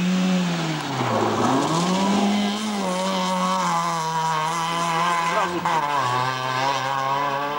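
Rally car engine revving hard as the car comes through a gravel corner and past. The revs dip sharply about a second in, climb again and hold, then the engine note drops about six seconds in.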